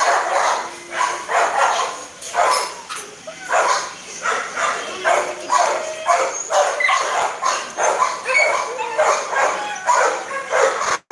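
Several dogs barking and yapping over one another in quick, repeated short barks, with a brief gap near the end.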